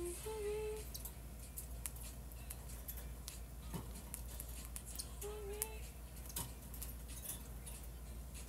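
A woman humming a few short notes at the start and again about five seconds in, over faint scattered clicks from small handiwork.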